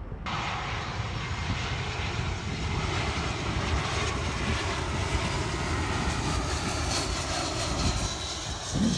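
Twin jet engines of an Airbus A320 passing low overhead on final approach to land: a steady, dense jet noise with a faint high whine, starting abruptly just after the start. Wind buffets the microphone underneath, gusting harder near the end.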